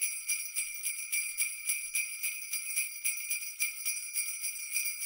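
Jingle bells shaken in a steady, even rhythm, about four or five shakes a second, with high ringing tones between the strokes.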